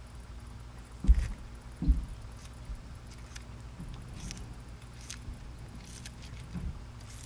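Baby red-footed tortoise biting and tearing salad leaves: small crisp crunching clicks every second or so. Two dull low thumps, the loudest sounds, come about a second and about two seconds in, over a steady low hum.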